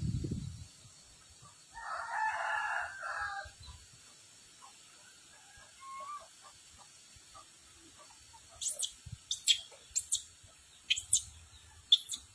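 A rooster crows once, then a bird gives about five sharp, high chirps that fall in pitch, a little under a second apart.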